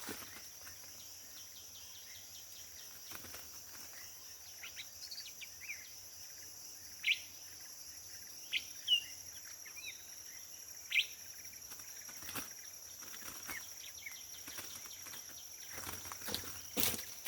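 Tropical forest ambience: a steady high-pitched insect drone, with a handful of short, sharp bird chirps through the middle. A few soft knocks come near the end.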